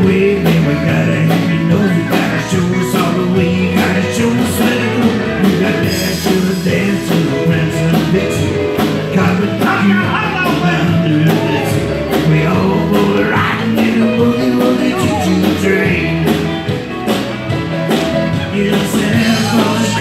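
A live rock-and-roll band playing an up-tempo Christmas boogie number, with electric guitar over a drum kit keeping a steady beat.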